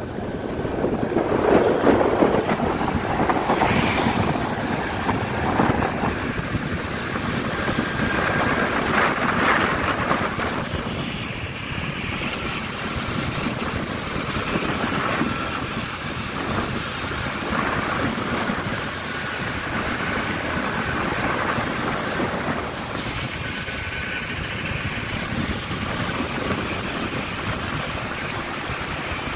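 Wind rushing over the microphone on a moving motorcycle, over the steady running of the bike at road speed. Loud and unbroken, with a few faint, brief higher tones mixed in.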